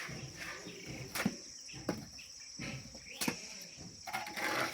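Crickets trilling steadily and high-pitched in the background, with a few sharp knocks and a short rasping scrape near the end from work at hand.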